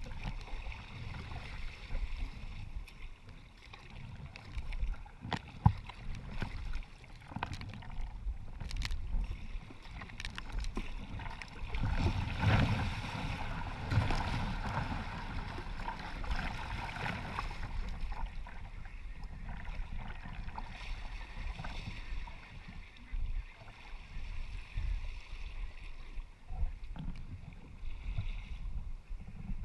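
Wind buffeting the microphone and choppy waves sloshing against a sea kayak's hull. About twelve seconds in it gets louder as a wave breaks over the bow and spray washes across the deck. A few sharp ticks come through on top.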